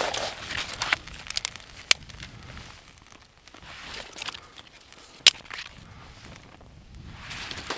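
Irregular crunching and crackling with a few sharp cracks, the loudest about five seconds in.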